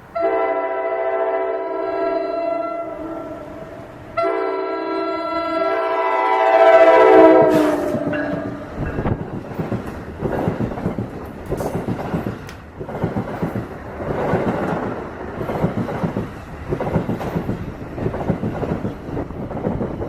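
ALP-46 electric locomotive's air horn blowing two long chord blasts, the second falling in pitch as the locomotive passes. It is followed by the rhythmic clickety-clack of the train's wheels running over the rail joints as the cars go by.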